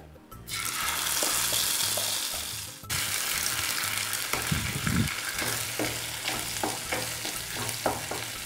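Ground onion-tomato paste hitting hot oil in a non-stick pan: a loud sizzle starts suddenly about half a second in, then the paste keeps frying while a spatula stirs and scrapes against the pan.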